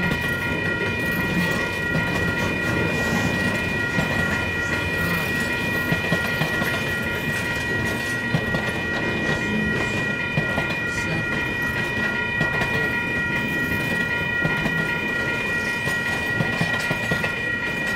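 Double-stack intermodal freight cars rolling past at a grade crossing: a steady rumble and clatter of steel wheels over the rails with scattered clicks, under a continuous high-pitched ringing tone.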